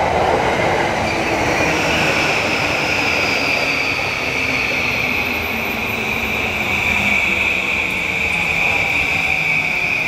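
JR East E235 series electric train slowing into a station: its Mitsubishi full-SiC VVVF inverter drive whines in thin tones that slowly fall in pitch as it brakes, over rumbling wheel noise and a steady high squeal.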